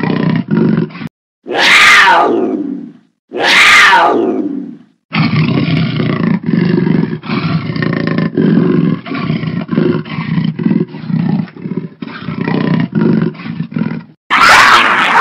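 Big cat calling: a few short grunts, then two long roars that fall in pitch, then a long run of short rasping grunts about two a second, and another loud roar near the end.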